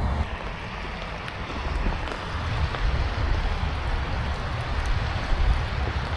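Steady rain with wind rumbling on the microphone.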